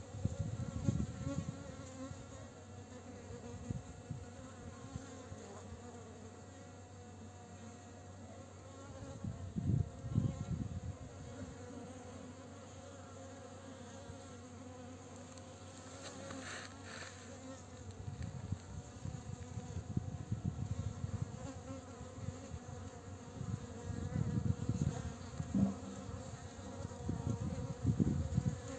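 Honeybees buzzing around the hive, a steady hum throughout, with one louder swell of buzzing about halfway through.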